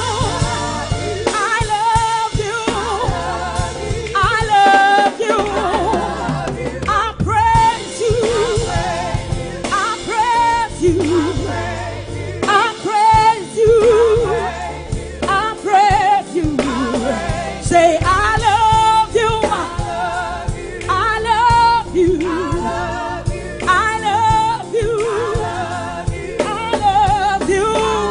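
Live gospel praise singing: a woman lead singer with backing vocalists over keyboard accompaniment, her held notes wavering with vibrato.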